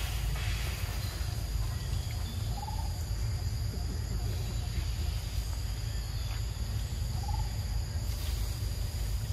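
Outdoor ambience with a steady low rumble, broken twice by a short, high animal call about four and a half seconds apart.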